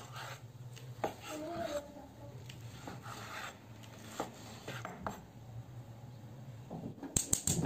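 Chef's knife cutting raw beef kidney on a wooden cutting board: scattered slicing strokes and taps of the blade on the board, over a low steady hum. Several sharp clicks come close together near the end.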